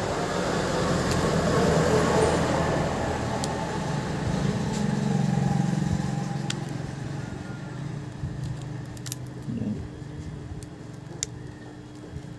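A low rumble swells and fades over the first six or seven seconds. After that come small scattered clicks and scrapes of a thin pry card working under the edge of a cracked phone screen.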